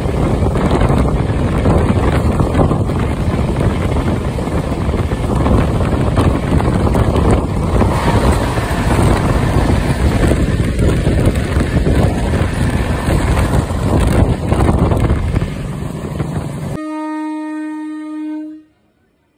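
Vande Bharat Express train rushing past at high speed on the adjacent track, a loud rush of air and low rumble with wheels clicking over the rails, heard from the window of another moving train. Near the end the noise gives way abruptly to a steady pitched tone for under two seconds, which then stops suddenly.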